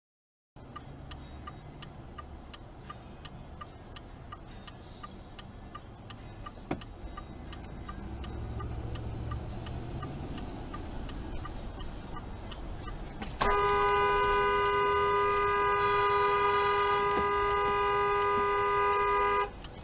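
Steady road noise with a regular ticking about twice a second, then about 13 seconds in a car horn sounds in one long steady blast of about six seconds and cuts off sharply.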